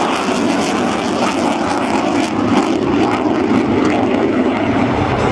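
Aircraft engines running in a loud, steady drone.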